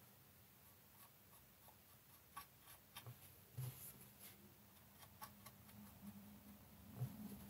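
Very faint, scattered soft ticks and scrapes of a thin paintbrush working enamel wash over painted plastic parts on a test card, over a low steady hum.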